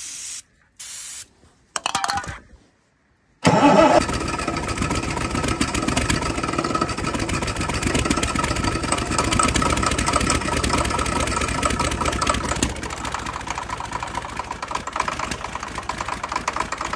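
A few short hisses of starting fluid sprayed into the air intake of a cold multi-cylinder diesel engine, then the engine suddenly fires and keeps running steadily, easing slightly lower near the end: a cold start on starting fluid.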